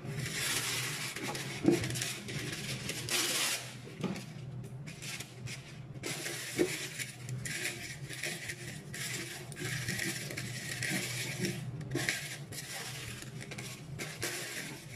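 Baking paper rustling and crinkling as it is pulled from its box and pressed and folded into a loaf pan, in irregular bursts, with a couple of short sharp knocks.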